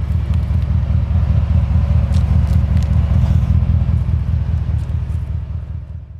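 Ford Raptor pickup's engine running with a deep exhaust rumble, swelling over the first second and easing off near the end.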